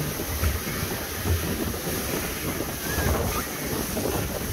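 Wind buffeting the microphone on a fast-moving open motorboat, with water rushing and splashing past the hull in choppy sea.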